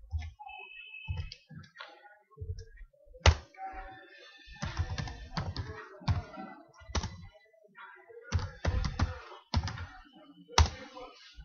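Typing on a computer keyboard: uneven runs of keystrokes with pauses between them, and a few louder single strokes standing out.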